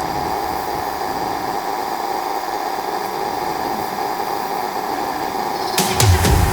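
A fan or small motor running steadily with a hiss and hum. A few sharp clicks and a brief low thump come near the end.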